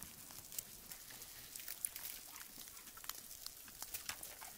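A dog's paws crunching through snow, a scatter of soft crunches and small clicks.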